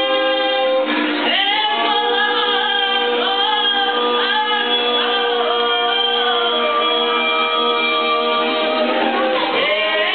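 Children's vocal ensemble singing in several parts, a moving melody over sustained lower notes, with a plucked string instrument accompanying. A held chord gives way to new notes about a second in.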